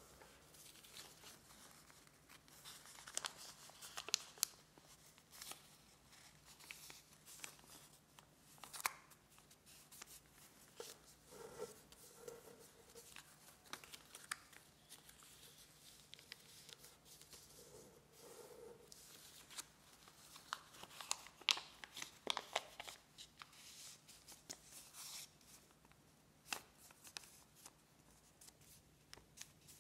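A square of origami paper being folded and creased by hand: quiet rustling with scattered sharp crinkles, in clusters a few seconds in and again about two-thirds of the way through.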